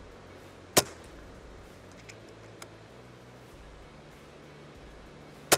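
Two shots from an FX DRS Pro PCP air rifle, one about a second in and the other at the very end, with two faint clicks between them, over steady wind noise.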